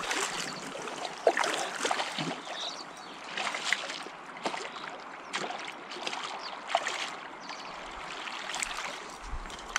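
A hooked trout splashing and thrashing at the surface as it is played in towards the bank, irregular splashes over the steady rush of the river.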